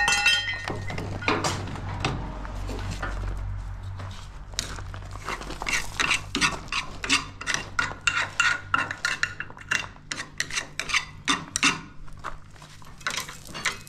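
Steel tools and parts clinking and clattering against the metal of a corn header being dismantled, with one ringing metal strike at the start and a run of quick sharp clinks through the second half.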